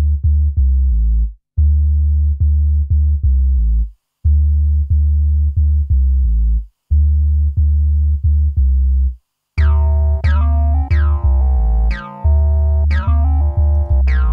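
Electronic backing music: a loud, low synth bass riff repeating in short phrases with brief gaps, joined about ten seconds in by higher synth notes that strike and fade.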